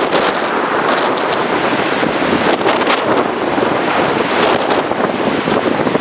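Strong wind buffeting the microphone in a loud continuous rush, over rough surf breaking and washing.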